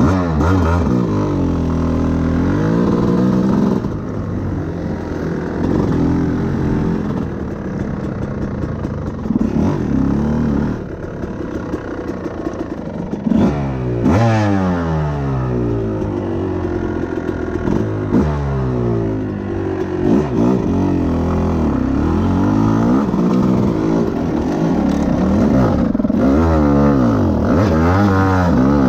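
Dirt bike engine revving while being ridden on a trail, its pitch climbing and dropping back over and over.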